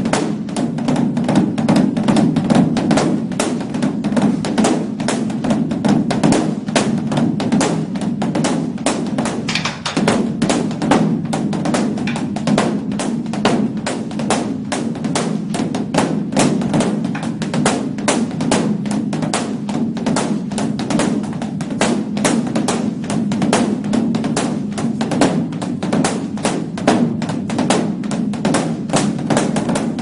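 Beopgo, the large Korean Buddhist dharma drum, beaten with wooden sticks in a fast, unbroken stream of strokes, several a second, its deep boom ringing on beneath the strikes, with a brief lull about ten seconds in. This is the temple's dawn drum rite.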